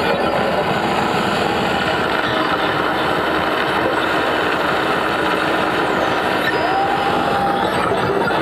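Live electroacoustic performance through loudspeakers: a dense, steady electronic noise texture. A short held tone sounds briefly about seven seconds in.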